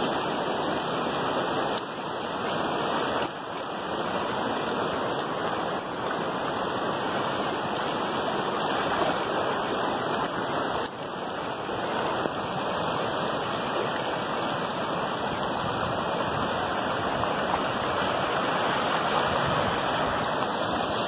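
Fast-flowing, churning river water rushing steadily past the bank, a loud even wash of water noise.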